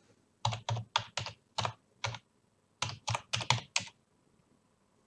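Typing on a computer keyboard: two quick runs of keystrokes with a short pause between them.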